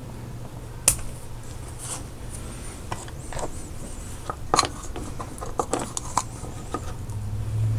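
Scattered small clicks and light scraping as hands work rubber O-rings and spacers onto a Bosch EV1 fuel injector and dab it in a tub of petroleum jelly. There is a sharp click about a second in and a quick run of clicks between about four and six seconds, over a steady low hum that swells near the end.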